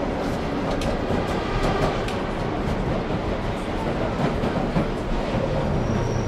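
Interior noise of a London Underground train carriage in motion: a steady loud rumble of the running train with scattered clicks and clatter from the wheels on the track.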